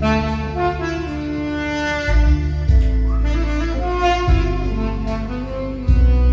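Saxophone playing the melody of a Korean trot song over keyboard accompaniment, with a bass line and a steady drum beat.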